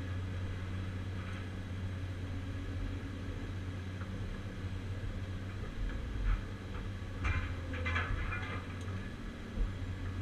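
Diesel engine of a CAT 345C UHD demolition excavator running steadily, heard from inside the cab as a low drone. In the second half, several short metallic clanks and crunches as the scrap shear grips scrap metal.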